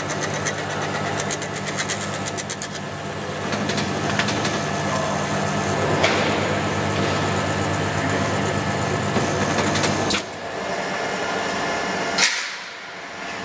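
PROFAB Stitch Pro seam welding machine running a weld: a steady electrical hum with fast crackling ticks, mostly in the first few seconds, as the weld wheel travels along the sheet-metal seam. The hum cuts off about ten seconds in, and a short sharp noise follows near the end.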